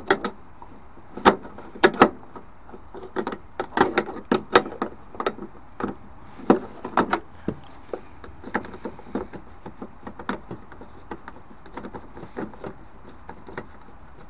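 Adjustable spanner clicking and knocking against a pipe nut on the underside of a combi boiler as the nut is loosened. The clicks are irregular and sharp, thickest in the first half, then lighter and sparser taps as the fitting is worked by hand.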